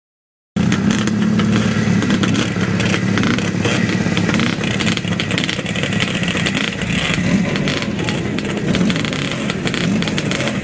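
Several vintage motocross sidecar outfits' engines running together at the starting gate, their revs wavering up and down as riders blip the throttles. The sound cuts in abruptly about half a second in.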